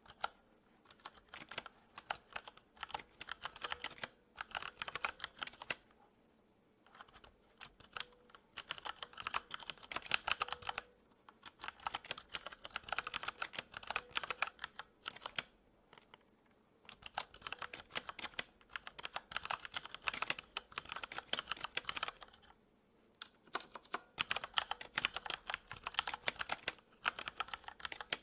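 Typing on a computer keyboard: quick runs of keystrokes broken by short pauses every few seconds.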